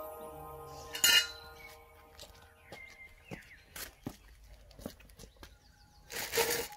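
Metal carport frame tubes clinking and knocking on a concrete driveway as they are handled and laid out. There is one loud clank about a second in, scattered lighter taps after it, and a short rustle near the end. Faint background music fades out in the first few seconds.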